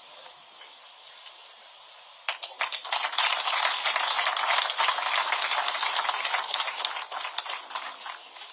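Audience applauding, starting about two seconds in, loudest in the middle and thinning out near the end.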